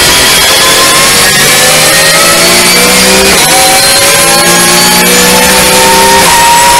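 Porsche 991.1 GT3 Cup car's naturally aspirated flat-six under full-throttle acceleration, heard from inside the car. The pitch climbs through the revs, drops sharply at each of about three upshifts and then climbs again.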